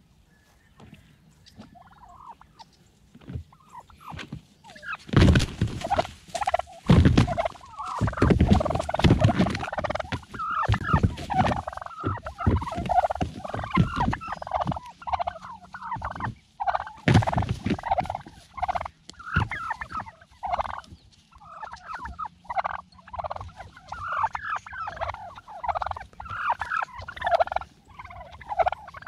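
A group of wild Rio Grande turkey gobblers gobbling over and over, their calls overlapping. Faint at first, it turns loud about five seconds in and goes on without a break.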